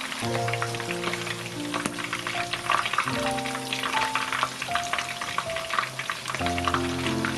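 Starch-coated, battered squid strips deep-frying in hot oil in a wok: a steady sizzle full of small crackles. Soft background music with held notes plays underneath.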